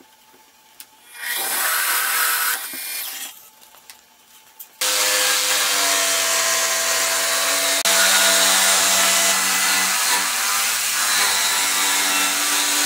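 A bench drill press bores into a plywood panel with a Forstner bit for about two seconds. Then, from about five seconds in, a jigsaw runs steadily, cutting a slot through a plywood panel.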